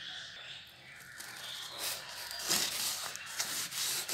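Taped cardboard box being cut open with a blade. From about a second in there is a run of short rasping, scraping strokes as the blade saws through the packing tape and cardboard.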